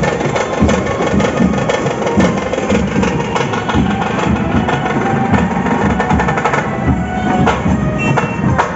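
Street drum troupe playing large barrel drums (dhols) with sticks in a loud, fast, continuous rhythm, sharp stick cracks over the deep drumbeats.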